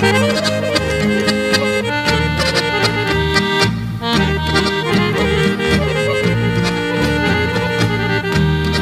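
Instrumental break in a Balkan folk song (sevdalinka): a lead melody of held notes over a steady bass and rhythm accompaniment, with no singing.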